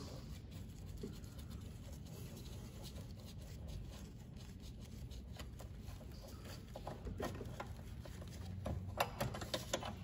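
Faint handling noise from gloved hands working a car trunk latch actuator: light scratching and rubbing, with a few small clicks toward the end.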